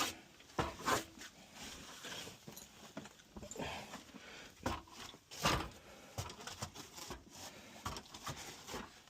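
Scattered knocks, clicks and scraping strokes of something being handled, with a few louder noisy scrapes about half a second in and around five seconds in.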